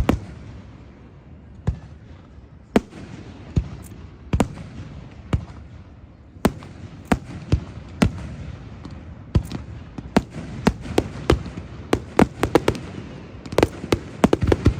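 Fireworks bursting overhead in a display: single sharp bangs a second or two apart, building to a rapid run of bangs near the end, over a low crackling rumble.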